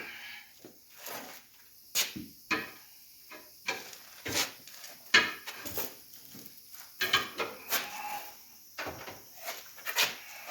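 Irregular metal clanks and knocks as a tire is worked onto its wheel rim on a tire changer machine. Some of the knocks ring briefly.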